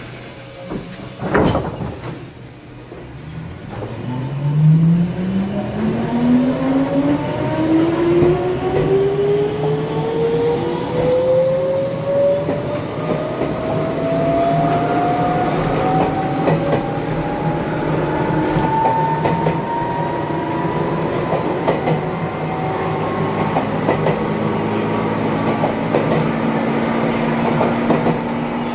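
Jomo Electric Railway train, an ex-Keio Inokashira Line car heard from inside the cabin, pulling away and accelerating. The traction motors' whine rises steadily in pitch and levels off as the train reaches speed, with the wheels clacking over rail joints. A sharp click comes about a second and a half in.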